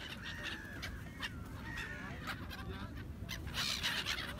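Birds calling repeatedly, a series of short bending calls, over a steady low rumble.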